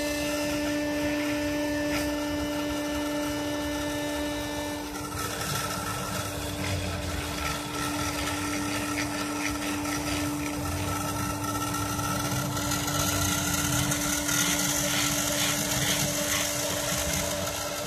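Homemade CNC engraver at work: the spindle motor runs with a steady hum while the bit cuts into clear plastic, and the laser-printer stepper motors driving the X and Y axes whine. The pitch of the whine changes about five seconds in and again later as the axes shift speed and direction.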